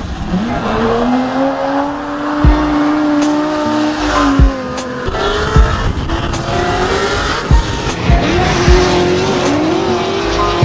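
Drift cars at high revs, their engine notes rising and falling as they slide, with tyre squeal over them and several sharp low thumps.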